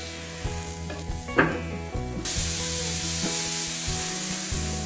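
Chive pockets frying in oil in a pan, a steady sizzle that grows louder about two seconds in.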